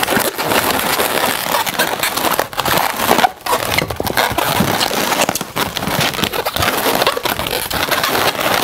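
Inflated latex 260 twisting balloons rubbing and creaking against each other as a black balloon is pulled through and worked between two loops of a red one, a dense run of crackles and scrapes with a couple of brief lulls.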